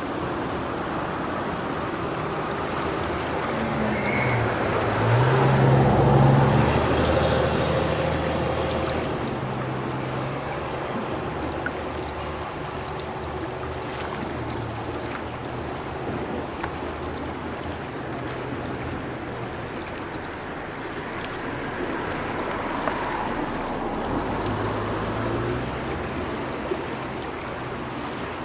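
Steady rush of floodwater running, with a motor vehicle's engine passing, loudest about six seconds in and again more faintly near the end.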